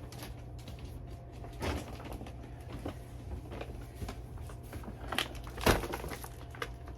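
Things being handled and shifted about in a small room: a few scattered knocks and clatters, the loudest a pair of thumps about three-quarters of the way through.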